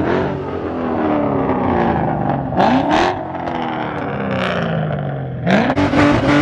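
Ford Shelby GT500's supercharged V8 revved hard three times; each rev climbs quickly, then the engine pitch falls back.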